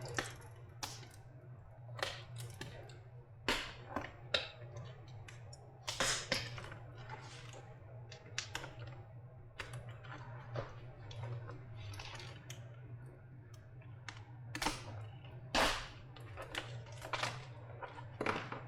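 Irregular sharp clicks and taps of hands and tools working on a lithium-ion battery pack's casing and tape, over a steady low hum.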